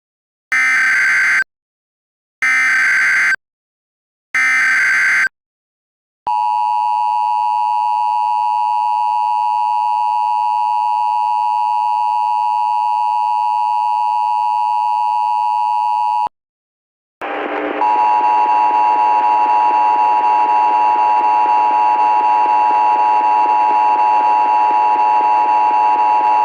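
Emergency Alert System signals from a DASDEC encoder. First come three short bursts of SAME header data, each about a second long, then the two-tone EAS attention signal held steady for about ten seconds. After a short break a second steady tone near the same pitch sounds for about nine seconds over a background hiss.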